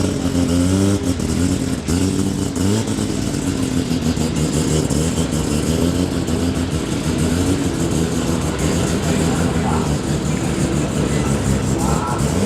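Car engine blipped up and down a few times in the first seconds, then held at a steady, slightly wavering speed, with revs rising again near the end.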